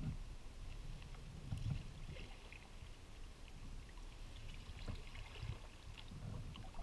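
Sea kayak paddled on calm water: soft, irregular splashes and drips from paddle strokes over an uneven low rumble at the bow-mounted microphone.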